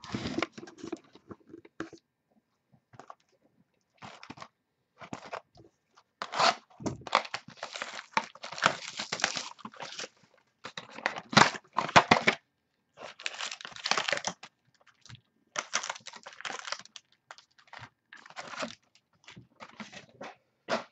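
Plastic wrap being torn off a sealed box of 2013 Sterling football cards and the box opened by hand: crinkling and tearing in irregular bursts, with short pauses between them.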